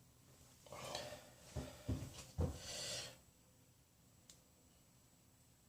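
Quiet bench handling: a couple of soft breaths with three short, low knocks within about a second, as small parts and the coil wire are handled, then near silence.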